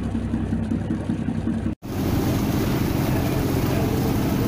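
Ship's engine running steadily, a low hum heard from on deck. It cuts off abruptly about two seconds in. Then the engine resumes with the rush of churning propeller wash alongside the hull.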